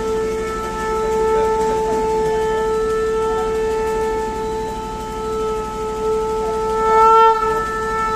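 Conch shell (shankh) blown in one long, steady note, swelling louder about seven seconds in.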